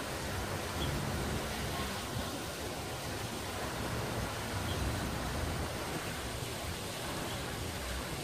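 Steady outdoor noise with wind buffeting the microphone in uneven low rumbles.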